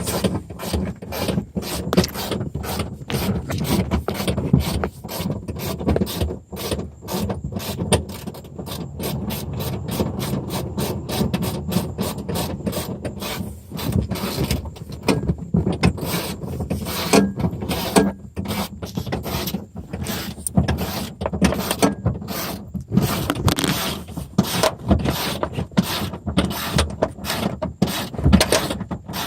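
Ratchet wrench clicking in quick, uneven runs as the seat bolts into the car floor are turned.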